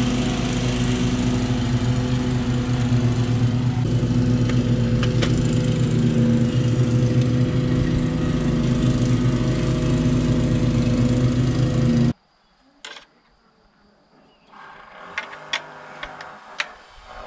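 A small engine running steadily and loudly, cutting off abruptly about twelve seconds in. After it, a few light metallic clicks as a bicycle wheel's axle is fitted into the frame by hand.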